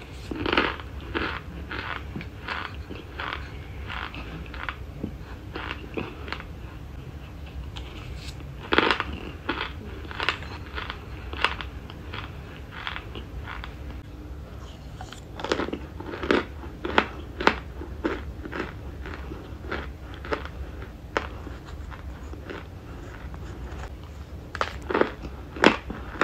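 A person chewing mouthfuls of dry cornstarch chunks: a long run of crisp crunches, about two a second at first, with louder clusters of bites about a third of the way in, just past halfway and near the end. A low steady hum runs underneath.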